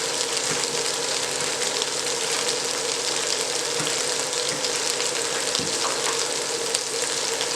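Thai red curry paste frying in corn oil in a pan: a steady sizzle with a few faint crackles.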